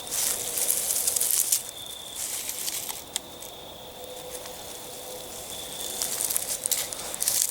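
Footsteps through dry leaves on the forest floor, in two spells of crackling rustle: one in the first second and a half and another near the end.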